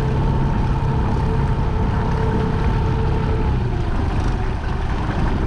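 Jon boat's motor running steadily while trolling, a constant low hum with a faint whine over it that fades out about three and a half seconds in.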